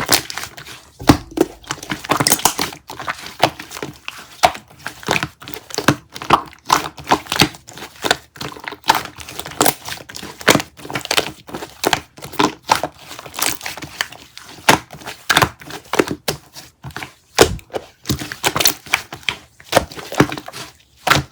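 Soda gum being handled close to the microphone: a dense run of crackling and crinkling, with many sharp clicks and pops several times a second.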